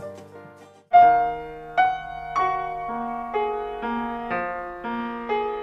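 Background music fades out. About a second in, a slow piano passage begins: single notes struck about twice a second, each ringing on and decaying as the next one sounds.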